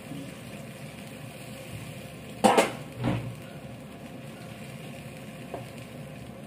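Pork sizzling and simmering in a pan as hot water is poured in, then stirred with a wooden spatula. Two knocks against the pan about two and a half and three seconds in.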